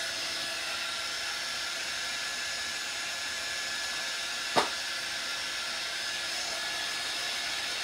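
Handheld craft heat gun blowing steadily, a hiss of air with a faint motor whine, as it dries freshly applied chalk paste. One short sharp tap about halfway through.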